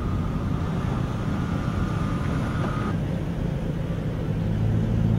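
Vehicle engine running steadily with a low hum, and a thin high whine over it that stops about three seconds in.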